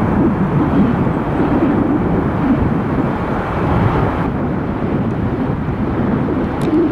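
Jet airliner engines passing close by, a loud, steady low rumble; the higher part of the sound fades slightly about four seconds in.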